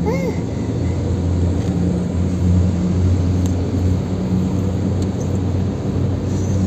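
Car driving steadily, heard from inside the cabin: a low, even drone of engine and road noise.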